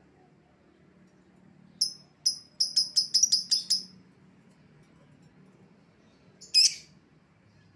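Lovebird chirping: a couple of sharp, high chirps, then a quick run of about eight in under two seconds, and one louder call near the end.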